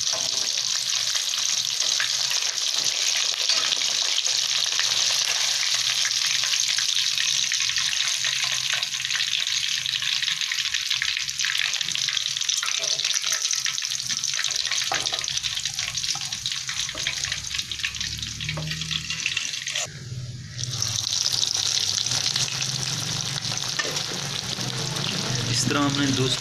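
Masala-coated fish frying in hot oil in a shallow steel pan: a steady, dense sizzle that briefly drops away about three-quarters of the way through.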